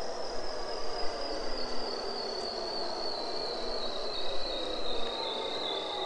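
Bearded seal trill call recorded underwater: a long, warbling tone that slowly falls in pitch, with a lower tone falling alongside it.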